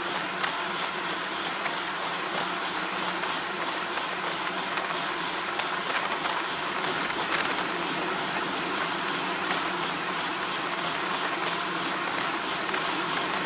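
Steady road and wind noise of a moving vehicle, an even rush without changes, with a few faint ticks.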